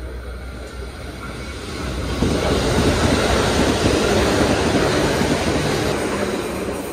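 Electric commuter train running into a station along the platform: wheel-on-rail rumble and clatter that swells loud about two seconds in and eases near the end.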